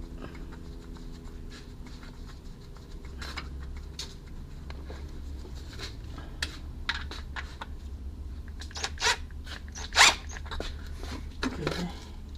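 Hand-work sounds from refitting an oil pan: scattered light clicks and short metallic rasps from tools and bolts. The loudest pair of rasps comes a little before the end.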